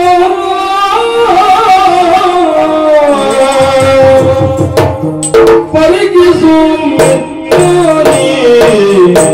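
Yakshagana music: a male voice sings long, sliding notes, and from about five seconds in sharp drum strokes join in.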